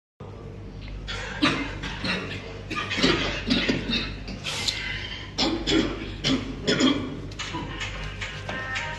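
A person coughing over and over, a series of short coughs in small groups; music begins near the end.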